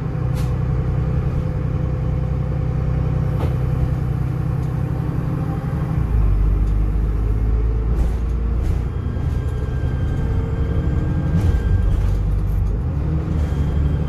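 Dennis Trident double-decker bus engine pulling along the road, heard from the upper deck, its low drone changing note about six seconds in and again near the end. A faint high turbo whistle rises over it in the last few seconds.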